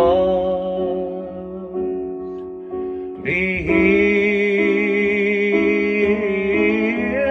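A man singing long held notes with vibrato over sustained piano chords. The first note fades, and a louder sung phrase comes in about three seconds in.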